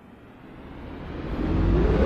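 Electronic dance music build-up: a noise sweep rising in pitch and growing steadily louder over a low rumble.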